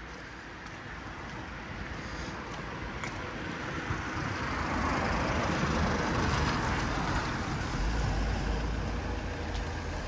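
A road vehicle passing along a city street: tyre and engine noise swells to its loudest about six seconds in, then a low rumble holds on.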